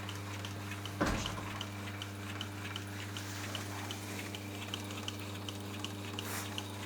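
Sock toe-linking (single-row looping) machine running slowly, with a steady hum and a light, regular ticking of about four ticks a second as it sews the sock toe; one sharper knock about a second in.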